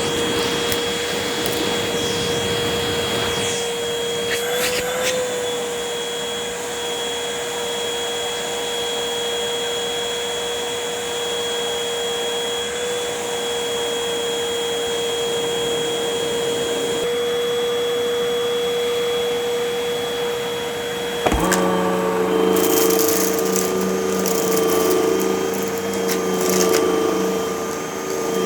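Upright vacuum cleaner running with a steady motor whine over a rushing hiss, with bursts of crackling as it sucks up crunchy debris. About 21 seconds in there is a sharp click and the whine changes to a different pitch.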